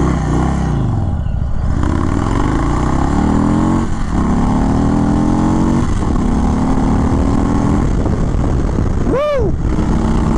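Stage 2 Indian Thunderstroke 116 V-twin on an Indian Chief Bobber Dark Horse, with aftermarket pipes, cams and intake, accelerating hard from a standstill. The engine note rises through the gears, dropping at upshifts about 4 and 6 seconds in, with wind rushing over the microphone. A short rising-and-falling tone sounds near the end.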